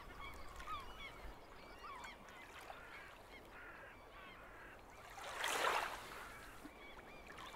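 A flock of birds calling, many short overlapping calls at once, faint in the background, with a brief rush of noise about five and a half seconds in.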